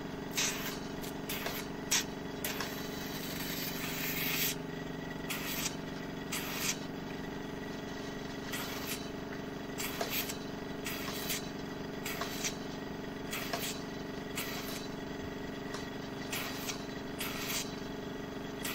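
Skinpro 1 water dermabrasion machine's pump humming steadily, while its suction handpiece, worked over the skin of the nose, gives short, irregular hissing slurps as it draws in water and air.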